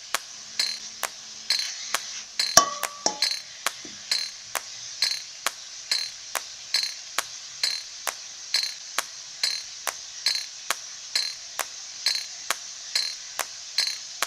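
Wooden spoon stirring chopped leeks, garlic and ginger frying in coconut oil in an aluminium pot: a steady sizzle with regular clinks of the spoon against the pot, about two or three a second.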